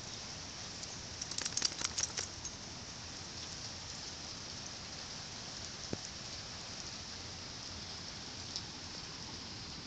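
Waterfall rushing in a steady hiss, with a short run of sharp clicks and crackles about a second in.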